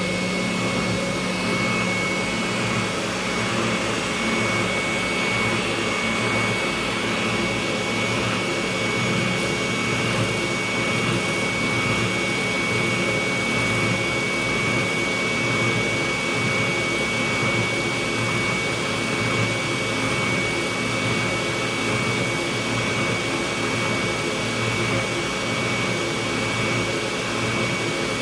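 Electric sander running steadily, a constant hum and high whine over a rush of noise, while a wooden dowel rod is ground down on it to fit guitar bridge mounting holes.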